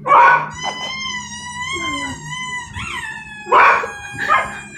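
A pet dog barking at the sound of a squeaky toy on TV: one loud bark at the start, a long wavering howl-like whine, then two more barks near the end.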